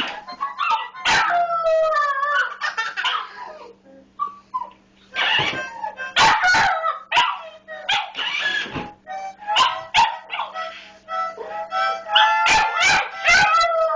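Puppy howling along to a harmonica, in long wavering calls broken by short sharp bursts.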